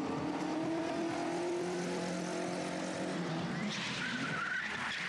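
Car engines of BMW 3 Series stunt cars running hard, their pitch shifting with the throttle. About three and a half seconds in, a car's tyres start squealing as it slides.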